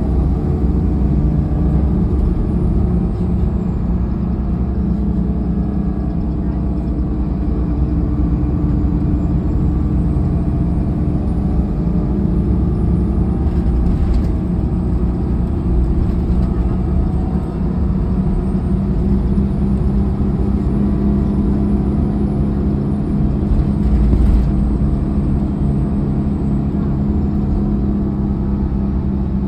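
Inside a 2005 Mercedes-Benz OH1728 bus under way: its rear-mounted diesel engine and ZF automatic transmission run steadily under road rumble. A low thump comes near the end.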